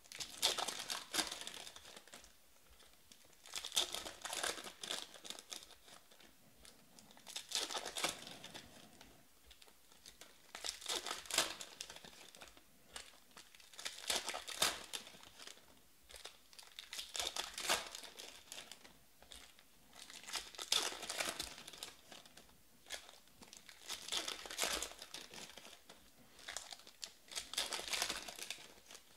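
Shiny wrappers of Panini Status basketball card packs crinkling and tearing as packs are ripped open one after another. The sound comes in about nine bursts, one every three to four seconds.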